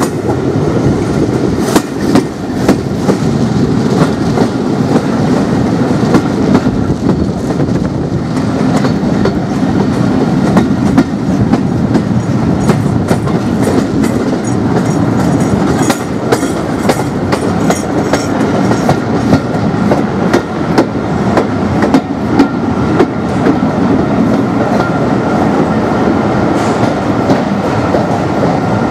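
Railway passenger coach running along the track, a steady rumble with frequent irregular clicks and knocks from the wheels over the rails, heard from inside the carriage.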